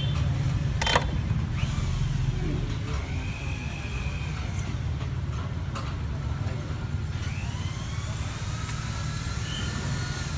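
Steady low rumble of a vehicle, with a single sharp click about a second in.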